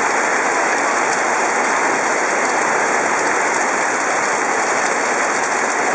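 Torrential rain pouring down onto pavement and standing water in a steady, dense hiss.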